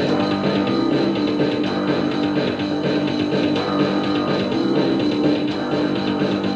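Punk rock band playing a passage without vocals, guitar to the fore, recorded lo-fi on a dictaphone.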